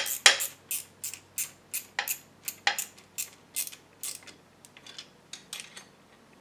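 Socket ratchet clicking in a steady series, about two or three clicks a second and fading toward the end, as the end-bell bolts of an electric motor are tightened.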